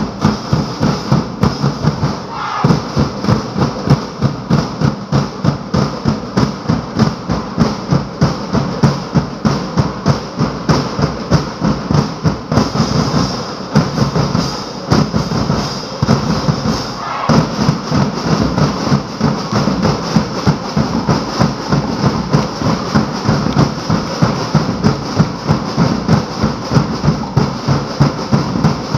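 Live street-dance drum ensemble of drums and cymbals, pounding out a fast, steady beat.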